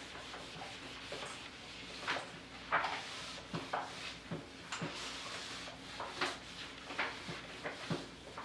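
Handheld whiteboard eraser wiping a whiteboard: a series of short, irregular rubbing swipes with light knocks against the board.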